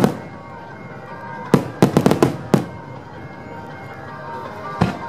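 Aerial firework shells bursting: a rapid cluster of about six bangs between one and a half and two and a half seconds in, then a single bang near the end. Music plays underneath throughout.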